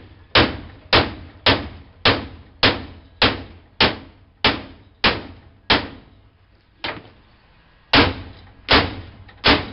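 Hammer blows on a vending machine's steel door bracket, struck to bend it loose. The blows come steadily, a little under two a second, each ringing briefly. After a short pause and one lighter tap, three more hard blows follow near the end.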